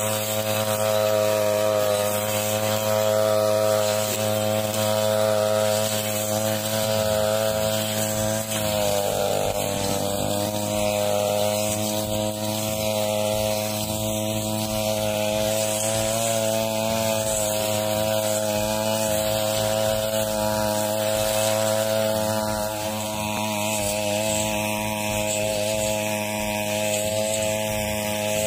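Backpack brush cutter engine running at high speed while its metal blade cuts through dry, dead grass. The engine pitch sags briefly about nine seconds in, and again more slightly a little after twenty seconds.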